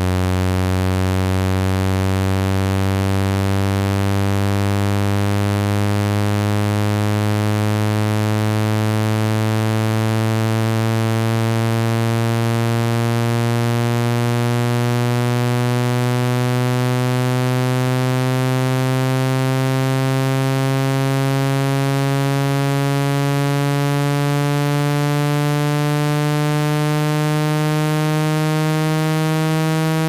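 Synthetic water-eject cleaning tone: a low, buzzy tone rich in harmonics, slowly rising in pitch, played at full volume through a phone speaker to shake water droplets out of the speaker and charging port.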